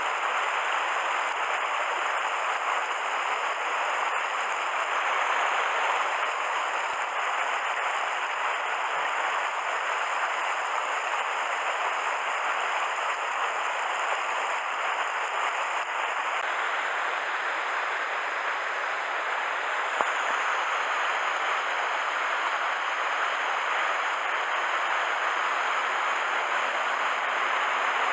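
Mountain stream rushing steadily over rocks, an even wash of water noise.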